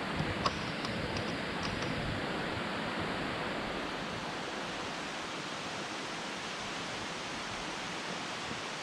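Steady rushing of a mountain stream, with a few faint light clicks in the first two seconds.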